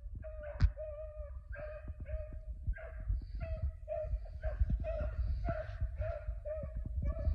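Beagles baying on a rabbit's trail, their calls coming about two or three a second: the dogs are running a rabbit.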